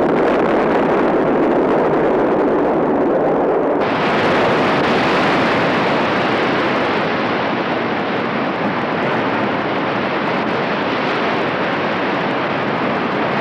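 Explosion of a missile striking its target, a long rumbling blast. About four seconds in it gives way abruptly to the steady rush of wind, waves and spray as a warship's bow ploughs through heavy seas.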